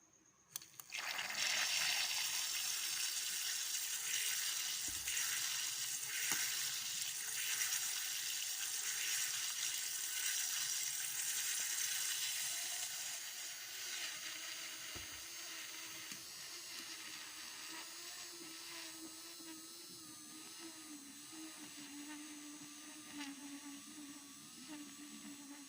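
Water rushing into a washing machine, starting abruptly about a second in and slowly easing off, with a low wavering hum coming in over the second half.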